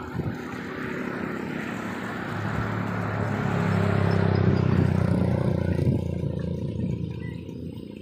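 A motor vehicle driving past: its engine grows louder over a few seconds, is loudest about halfway through, then fades away.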